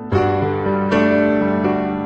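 Background music: sustained keyboard chords, with new chords struck near the start and again about a second in.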